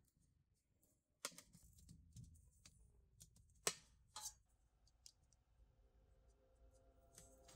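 A handful of faint, scattered clicks and clinks as a screwdriver tightens a metal hose clamp on a hose fitting, the sharpest about three and a half seconds in, with near silence between them.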